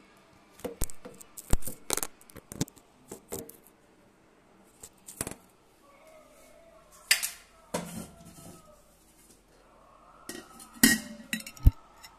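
Irregular clinks and knocks of a kitchen knife and a steel plate being handled while onions are prepared, a dozen or so separate strikes with no steady rhythm, the loudest about seven and eleven seconds in.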